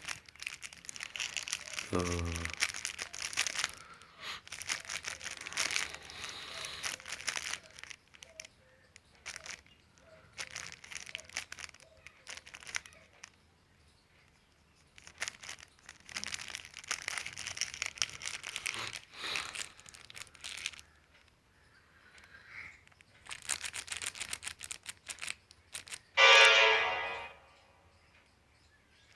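Crinkling, rustling handling noise in long stretches, with quieter gaps between. Near the end comes one short, loud pitched sound.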